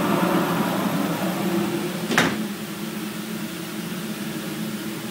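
Oneida 2 HP Dust Gorilla dust collector running steadily; about two seconds in the insulated closet door shuts with a thud, and the running noise becomes quieter and muffled for the rest of the time.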